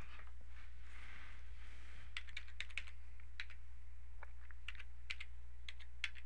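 Typing on a computer keyboard: a run of irregular keystrokes, mostly from about two seconds in, over a steady low hum.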